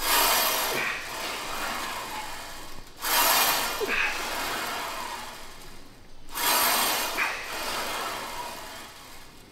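Sounds of a weight-training set: three noisy rushes about three seconds apart, one per rep, each loudest at its start and fading away.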